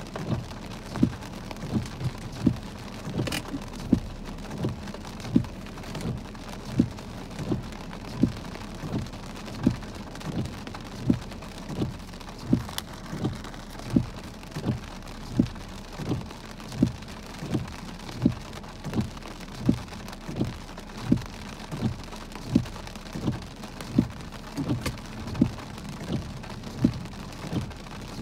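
Heavy rain falling on a car, heard from inside, with a regular low thump about three times every two seconds over the steady rain hiss.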